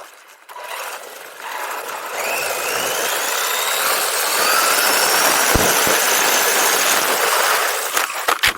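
WLToys 144001 RC buggy's electric motor and gears whining, rising in pitch as the car picks up speed, over a steady hiss of tyres rolling on the path. A few sharp knocks near the end.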